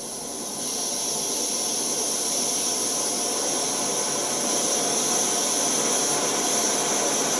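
MSR WhisperLite Universal backpacking stove burner running in liquid-feed mode, a steady rushing hiss from the flame. It gets louder about half a second in and again about four and a half seconds in as the heat is turned up.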